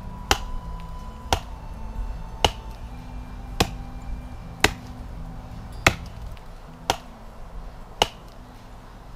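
A Hultafors bushcraft axe chopping into a dead birch log, with sharp chops at an even pace of about one a second.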